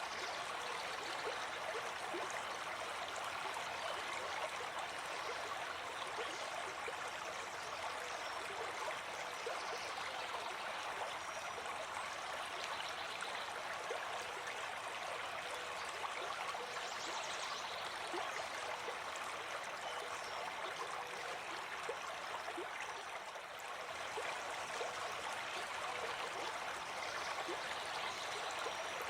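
Running water flowing steadily, an even rush of water noise with small splashy flecks in it.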